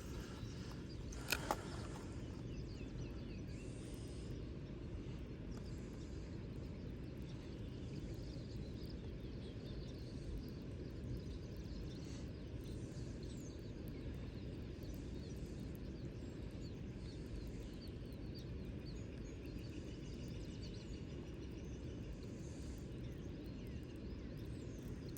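Outdoor ambience by the water: a steady low rumble with faint bird chirps, and two sharp clicks about a second in.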